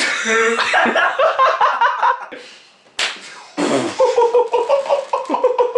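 A single sharp open-hand slap to the face about three seconds in, with laughter and voices before and after it.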